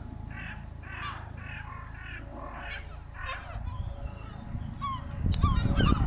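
A flock of gulls calling, a quick run of short, harsh calls overlapping one another. About five seconds in, a loud low buffeting sets in as birds swoop close.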